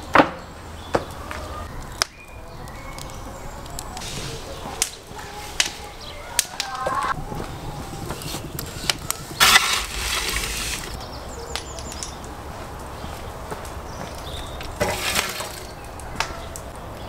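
Wood fire burning in a brick oven, with scattered sharp cracks and knocks of wood. Twice, once a little past the middle and once near the end, a louder rushing noise rises for about a second.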